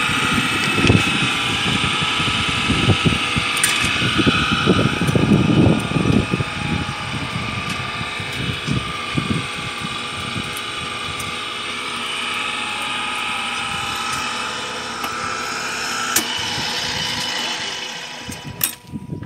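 Electric pipe threading machine running with a steady motor whine, with irregular low rattling and scraping through the first half; the motor shuts off near the end.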